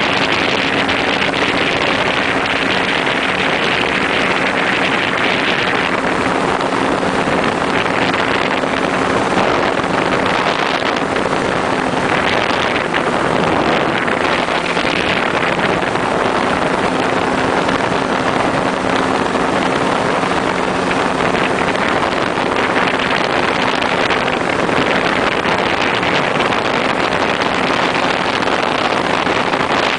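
Powered parachute engine and propeller running at a steady, even pitch in flight, with wind rushing over the microphone.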